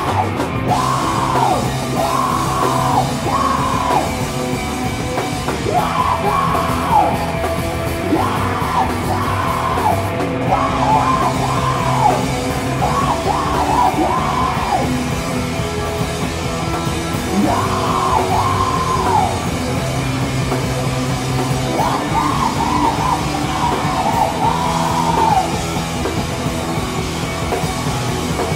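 Rock band playing loud and live, drums, guitars and bass under a vocalist yelling phrases of about a second each, with short gaps between them.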